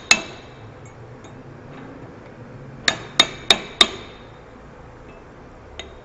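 Hammer blows on a flat steel bar used as a driver to tap a new rear oil seal into the extension housing of a 42RLE automatic transmission. There is one strike at the start, then a quick run of four metallic strikes near the middle, each with a short ringing tail.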